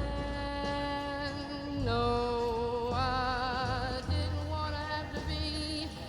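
Music: a wordless melody of long held notes, some wavering with vibrato, sung over a low bass.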